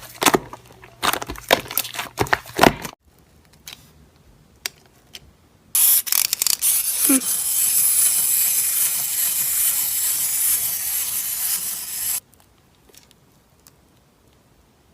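Slime being squished and stretched: a run of sharp crackling pops for about three seconds, a short lull with a few clicks, then a loud steady hissing rustle for about six seconds that cuts off suddenly.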